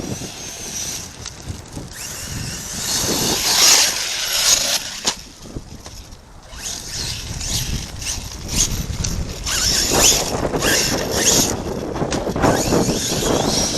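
Arrma Kraton RC truck with an 8S Firma brushless system, its electric motor whining as it surges and backs off several times, with its tyres churning over dirt and rocks.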